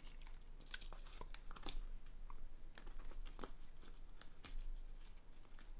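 Faint handling noise: scattered small clicks and rustles as a metal carabiner is hooked onto a fabric bag's zipper pull.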